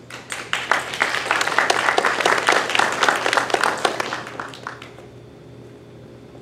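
Audience applauding: dense clapping that starts right away, swells, and dies away about five seconds in.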